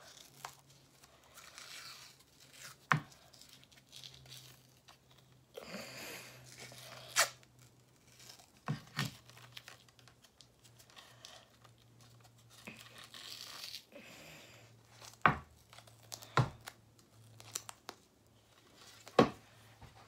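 Cloth hockey tape being pulled off the roll and wound tightly around a stick's knob: intermittent ripping rasps of tape peeling from the roll, with a few sharp knocks scattered through.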